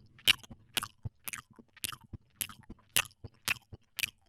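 Chewing: crunchy bites repeating evenly, about two a second.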